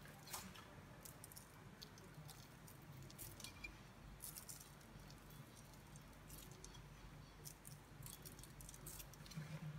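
Faint, scattered pattering and crackling of breadcrumbs sprinkled by hand onto stuffed zucchini halves on a parchment-lined baking tray, over a low steady hum.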